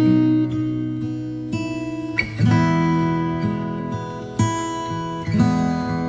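Background music: an acoustic guitar strumming chords, changing chord every second or two.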